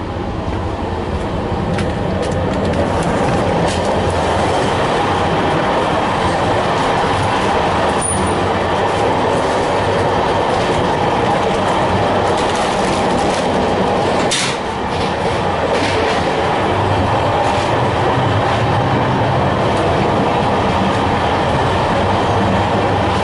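Express train coach running at speed, about 110 km/h, heard from the end vestibule: a loud steady rumble of wheels on rail with scattered clicks and knocks of the rail joints. The rumble gets louder over the first few seconds as the doorway into the vestibule is passed, and there is one sharper knock about two-thirds of the way through.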